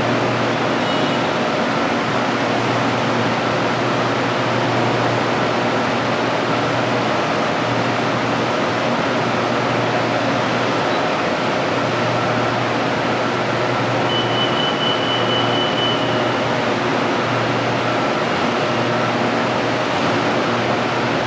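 Steady running noise of a BTS Skytrain metro train, an even rush with a low hum that holds level throughout, with a short high beep about two-thirds of the way through.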